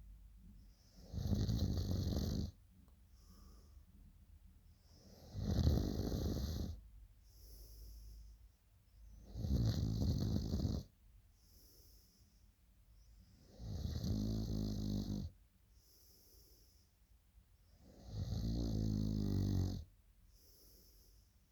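A sleeping woman snoring loudly: five snores, about one every four seconds, each lasting a second and a half or so, with faint breathing between them.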